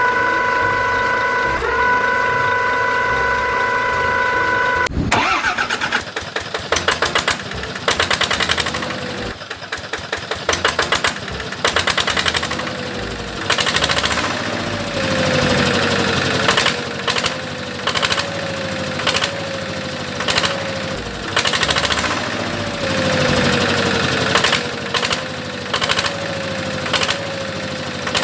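An engine or motor running: a steady whine for about the first five seconds, which cuts off suddenly. It is followed by a stop-start engine sound with repeated knocks and a short falling tone about once a second.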